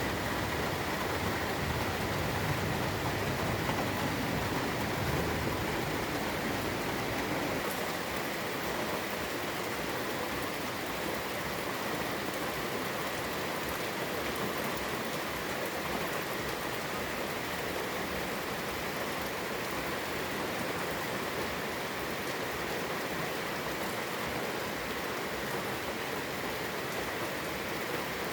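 Steady rain falling, an even hiss. A low rumble underneath dies away about seven seconds in.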